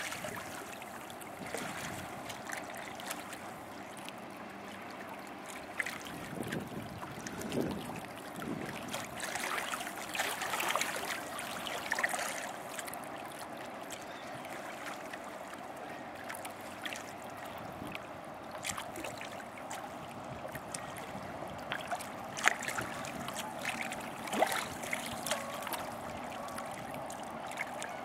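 Small waves lapping and trickling at the river's edge in irregular little splashes, over a steady hum from the passing lake freighter.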